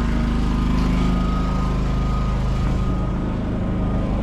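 A machine running steadily with a low engine-like hum and a faint high whine above it; the lowest part of the hum shifts about two-thirds of the way through.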